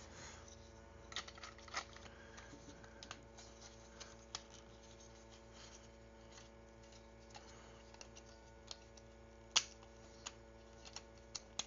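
Scattered light clicks and taps of hard plastic toy parts being handled and pressed together, with one sharper click about nine and a half seconds in, over a faint steady hum.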